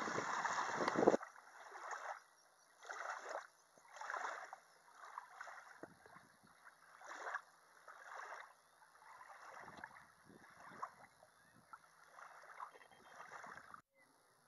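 Rushing wind and choppy water, loud for about the first second, then cut off abruptly. After that, soft water splashes and lapping, about once a second.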